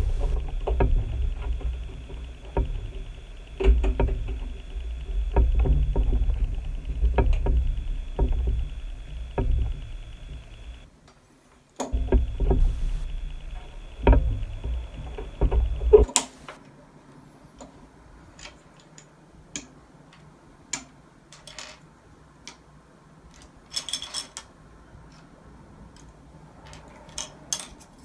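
Plastic LEGO pieces clicking and rattling as they are picked from a loose pile and pressed together on a table. For the first half a loud low rumble with a steady high tone runs under the clicks; it drops out briefly about eleven seconds in and cuts off abruptly about sixteen seconds in, leaving the clicks alone.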